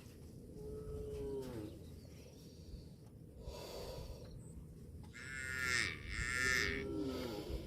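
Cattle mooing: a short low moo about a second in, then a longer, louder call in the second half, each dropping in pitch at its end, with a breathy noise between them.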